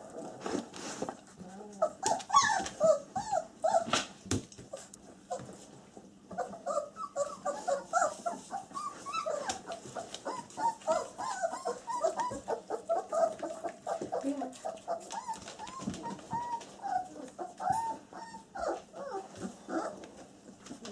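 A litter of 20-day-old German Shepherd puppies whimpering and squeaking, many short high calls in quick succession, with scattered sharp clicks among them.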